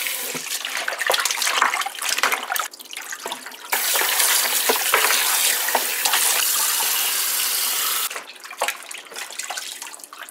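Hands sloshing and splashing pieces of duck in a bowl of water in a kitchen sink. From about four seconds in to about eight seconds a tap runs steadily, then the sloshing goes on.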